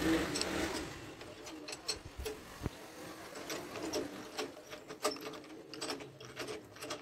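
Tubular box spanner and steel bar being worked on a nut in an opened Honda CG125 engine beside the clutch, giving irregular metallic clicks and rattling, several a second and loudest at the start.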